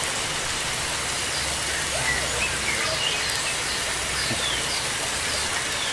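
Steady rushing hiss of running water, with faint short high bird chirps now and then.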